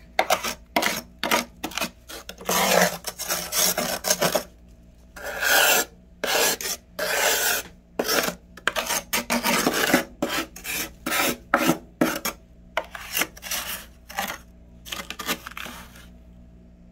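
Thick frost on a freezer's inner walls being scraped with a fingernail in quick rasping strokes, about two a second, with some longer drawn-out strokes among them. The scraping stops near the end, leaving a faint steady hum.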